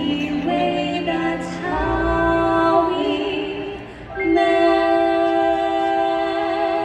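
Two singers, a man and a woman, singing in harmony in long held notes with vibrato over a musical backing track, with a brief breath about four seconds in before a final sustained note: the closing of a Broadway show duet.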